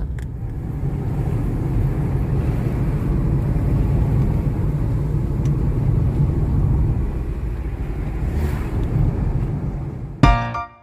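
Steady low road rumble of a car driving, heard from inside. About ten seconds in, music cuts in with sharp percussive hits.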